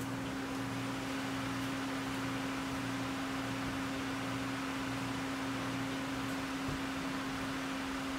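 Honda Accord V6 engine idling, a steady even hum over a light hiss.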